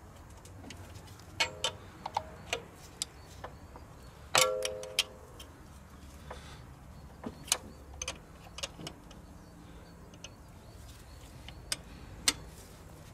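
Scattered metallic clicks and clinks of high-pressure fuel pipes and their union nuts being handled and fitted onto a diesel engine's injectors. A few of the knocks ring briefly; the loudest comes about four and a half seconds in.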